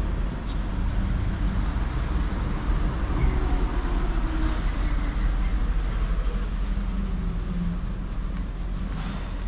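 City road traffic: a steady low rumble with a vehicle passing, loudest about three to five seconds in.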